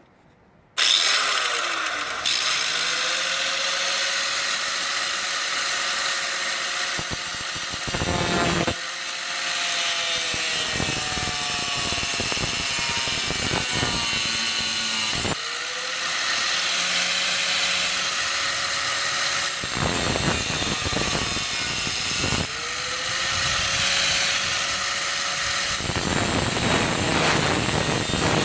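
Harbor Freight budget angle grinder cutting through a brass battery cable terminal, starting about a second in: a loud harsh grinding with the motor's whine over it. The whine dips and winds back up three times as the cut goes on.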